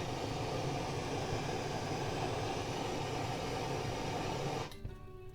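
Trigger-start plumbing torch burning with a steady flame roar, then shutting off abruptly about four and a half seconds in as the button is released.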